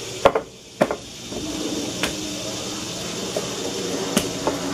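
Sourdough dough handled by hand in a glass bowl, with a few sharp knocks against the bowl in the first second and lighter taps after. A steady low hum sets in about a second in.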